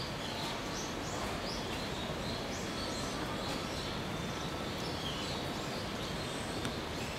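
A small bird chirping again and again in short high notes, about twice a second, over a steady outdoor background hiss.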